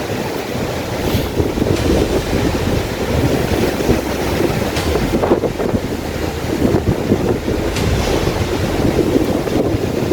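Strong wind gusting against the microphone in an uneven rumble, with ocean surf washing beneath it.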